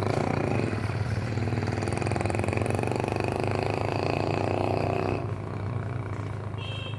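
Small motorcycle engine running close by with a fast, even pulsing, dropping away about five seconds in.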